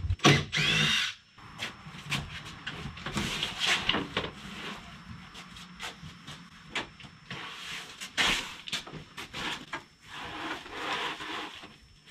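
Old front door being taken off its frame: a series of irregular knocks as the hinge pins are tapped out, with scraping and handling of the heavy door once it comes loose. A brief squeal sounds about half a second in.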